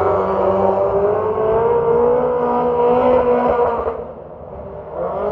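Autograss race cars' engines running hard as they lap the shale oval, with one car passing close. About four seconds in the engine sound drops away sharply, then swells briefly again near the end.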